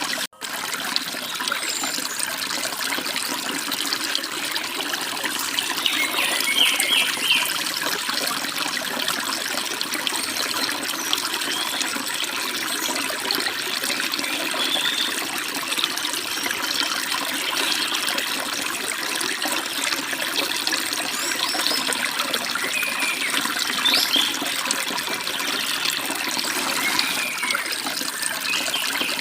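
Forest stream babbling and splashing steadily over rocks, with a few short bird chirps now and then. The sound cuts out for a split second just after the start.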